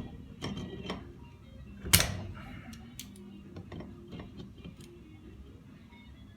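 Metal pump parts and tools being handled: a string of clicks and knocks, with one loud knock about two seconds in. Faint music runs underneath.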